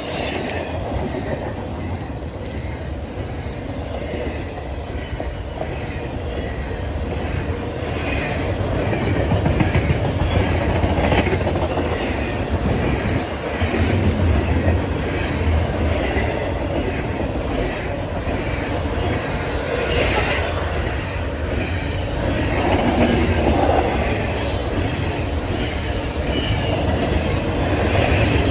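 Train rolling past, its wheels clicking over the rail joints at a steady rhythm above a continuous low rumble.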